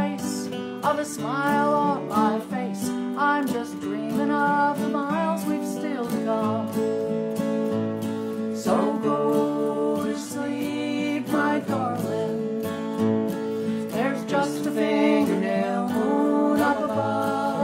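A woman singing a folk song to two acoustic guitars, one strummed and one picked.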